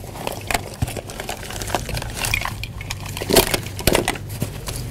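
Small hard objects being rummaged through by hand: an irregular string of clicks, clinks and knocks, the loudest about three and a half to four seconds in.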